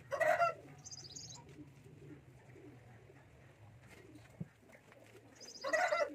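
Birds calling: two short, loud calls, one just after the start and one near the end, each with high chirps beside it.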